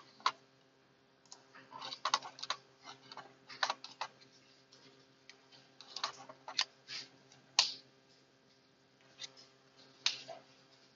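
Scattered, uneven clicks and taps of a computer keyboard and mouse being used to move to another page, over a faint steady hum.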